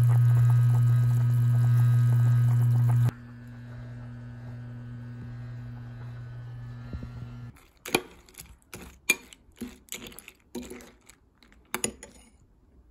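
A loud steady electrical hum, the kind a kitchen appliance makes, dropping to a quieter hum about three seconds in and stopping about halfway through. It is followed by a run of about ten sharp, uneven clicks and taps.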